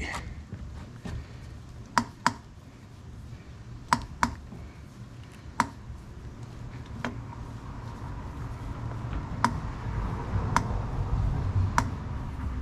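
Head of a Morris radial drill press being cranked along its arm by hand: sharp, irregular clicks every second or two, often in pairs, over a low rumble that grows louder in the second half. The owner thinks the clicking is the shell of a broken glide ball bearing striking the rack.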